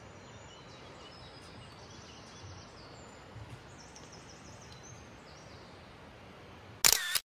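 Steady outdoor background noise with small birds singing short, high, thin notes, including a quick run of repeated notes about four seconds in. Near the end a sudden loud knock, much louder than anything else, and then the sound cuts off.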